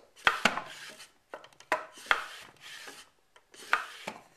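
Wooden can crusher's plunger block worked up and down by hand in its wooden guide channel: wood sliding and rubbing on wood, with several sharp wooden knocks at uneven intervals as it meets the ends of its travel. It is a test of the freshly assembled slide, which runs freely.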